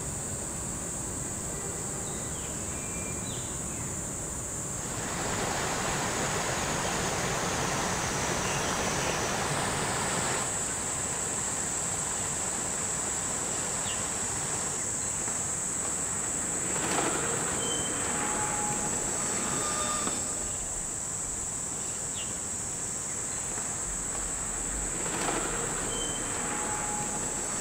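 Outdoor ambience of a steady high-pitched insect drone. A broad rushing noise swells in about five seconds in and stops abruptly around ten seconds. A few short high chirps come later.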